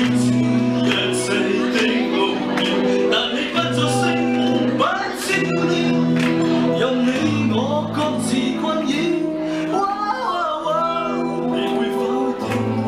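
Live band with electric guitar, keyboard and drums playing a slow pop song with held bass notes and chords. A man sings through a microphone over it, most clearly in the middle.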